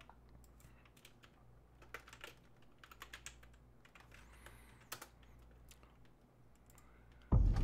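Faint computer keyboard typing: a few scattered keystroke clicks. Near the end there is a short, louder low thump.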